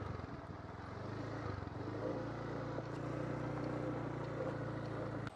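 A vehicle engine running steadily at a low pitch while on the move, with a brief dip about one and a half seconds in.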